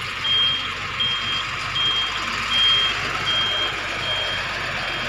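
Box truck's reversing alarm beeping, a single high tone about once every three-quarters of a second as the truck backs up. The beeps grow fainter near the end.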